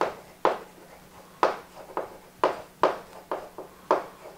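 Chalk writing on a chalkboard: a string of short, sharp taps and brief scrapes, about two or three a second at uneven spacing, as each stroke is made.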